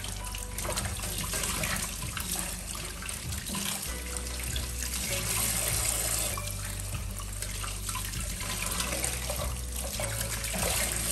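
Kitchen mixer tap running steadily into a stainless steel sink while utensils are rinsed under the stream.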